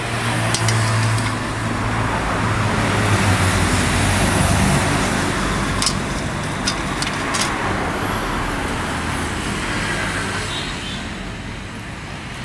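Road traffic: a motor vehicle's engine rumble that swells over the first few seconds and then slowly fades, with a few light clicks between about six and seven and a half seconds in as the tool case is handled.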